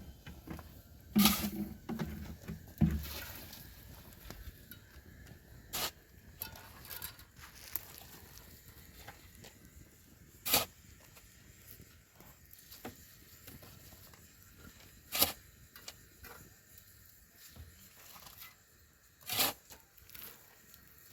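Scattered sharp knocks and clatters, about six of them several seconds apart, the loudest two in the first three seconds, over a low background.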